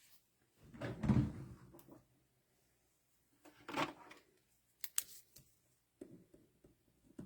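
A few faint handling noises: a soft rustle about a second in, another near four seconds, then scattered light clicks and taps.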